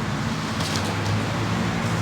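Vehicle engine and road noise: a steady low hum, with a short hiss about half a second in.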